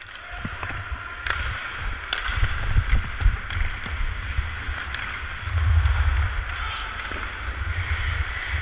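Wind buffeting the microphone of a worn action camera while the wearer skates, a fluctuating low rumble, over the scrape of ice-hockey skate blades on the ice. A few sharp clicks of sticks or puck cut through.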